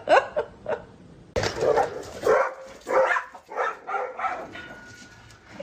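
A dog giving short barks and yips: a few quick calls at first, then, after an abrupt cut about a second and a half in, a string of further short calls that dies away near the end.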